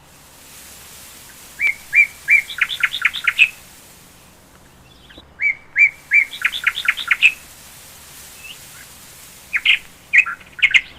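A songbird singing the same phrase three times over a steady hiss. Each phrase is a few separate whistled notes followed by a quick run of short notes.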